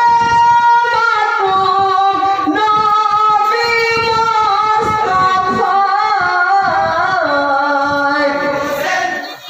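A solo male voice singing a Bengali marsiya (Muharram lament) through a microphone and PA: a slow, ornamented line of long held notes that steps downward in pitch toward the end.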